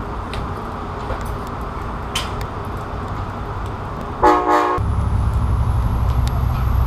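Amtrak Cascades train sounding two quick toots of its horn, the signal that it is releasing brakes and moving off, after which the locomotive's diesel engine throttles up into a loud, steady low rumble as the train pulls away, with a faint high whine slowly rising over it.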